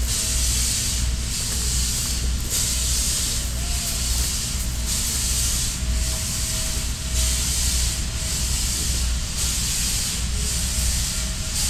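Steam hiss from the Norfolk & Western 611 steam locomotive working a passenger train at a distance, swelling and dipping about once a second.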